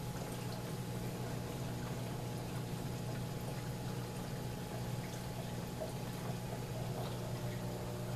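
Reef aquarium's water circulation: a steady sound of running, trickling water over a constant low pump hum.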